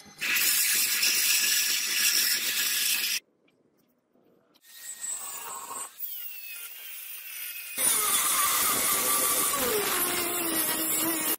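Abrasive grinding on a forged steel sword blade in short cut-together clips. First a surface grinder's wheel runs over the blade and stops abruptly, leaving a brief near silence. Then an angle grinder with a flap disc grinds the blade, and its pitch drops near the end as it bears down.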